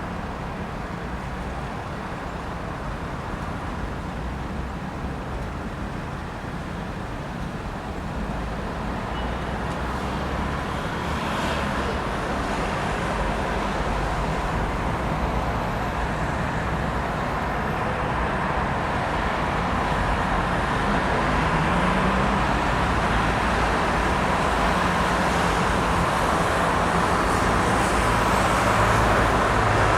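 Busy city street traffic: a steady wash of car engines and tyres, growing gradually louder through the second half.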